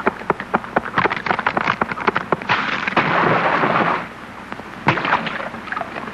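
Cartoon sound effects of a beaver gnawing through a tree trunk: rapid clicking, then a loud rushing crash about two and a half seconds in as the tree comes down, and a few more clicks near the end.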